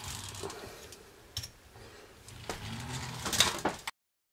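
Plastic pull-back motor of a LEGO Technic 42073 car whirring as the car is pushed back and rolled across a tabletop, with sharp plastic clicks. The loudest clatter comes about three and a half seconds in, and the sound cuts off abruptly just before the end.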